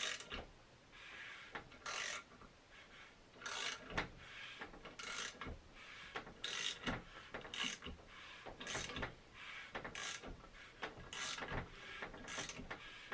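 Hand ratchet clicking in short bursts, about once a second, on its back-swings while turning the crankshaft of a freshly assembled Subaru EJ25 short block. The engine turns over with light effort on the ratchet.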